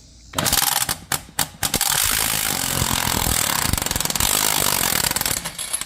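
Impact wrench hammering on a left-hand-threaded wheel lug nut: a few short bursts, then a steady run of about four seconds that breaks the nut loose.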